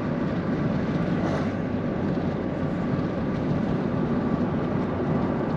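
Steady road and engine noise of a car driving along at a constant speed.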